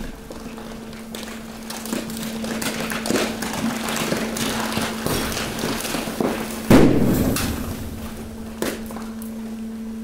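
Hydraulic waste press ram pushing mixed garbage across the steel floor of the press container, over the steady hum of the hydraulic pump. Plastic bottles, bags and packaging crackle and crunch, building to a loud crack about seven seconds in, then easing off.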